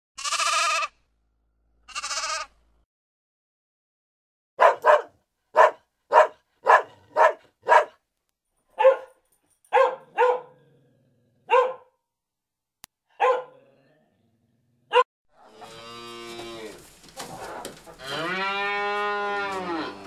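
A sheep bleats twice, then a dog gives about a dozen short, sharp barks, spaced irregularly. Near the end, cattle moo, ending in one long moo.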